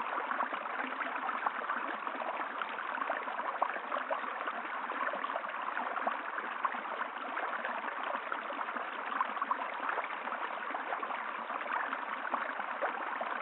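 River water flowing steadily, a continuous rushing and gurgling with fine splashy crackle.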